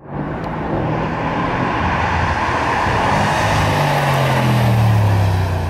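A 2021 Mercedes-AMG C63 S's twin-turbo V8 exhaust as the car drives by, a loud, steady engine note that dips slightly in pitch near the end as it passes.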